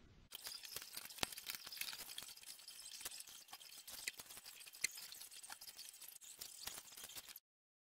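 Faint scattered clicks and light rattling of plastic Lego bricks being handled and fitted together. The sound stops shortly before the end.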